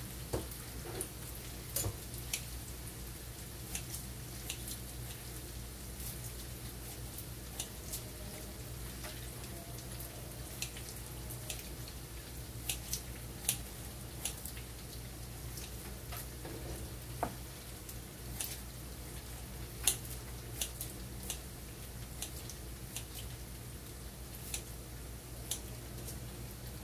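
Ground shallot and garlic paste frying gently in oil in a wok, starting to brown, with scattered sharp spits and pops at irregular intervals over a steady low hum.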